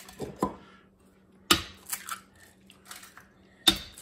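Eggs being cracked one after another: two sharp shell cracks about two seconds apart, with softer crackles of shell breaking open between them.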